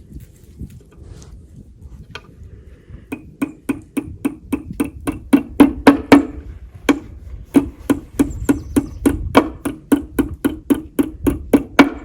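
Quick, even light hammer taps on wood, about three or four a second, starting about three seconds in, as a small drawer handle is knocked into the wooden drawer front.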